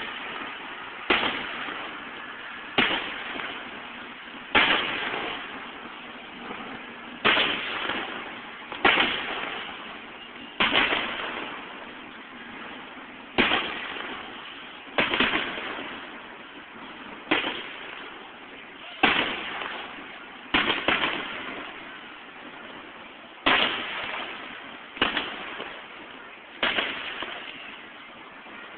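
Aerial fireworks shells bursting in a steady series of about sixteen loud bangs, one every one and a half to two seconds, each trailing off in a rumbling echo. Heard through a cell phone's microphone.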